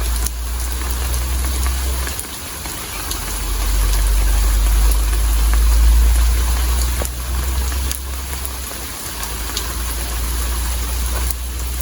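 Steady rain falling, an even hiss with scattered drip taps. Under it runs a low rumble that swells and fades.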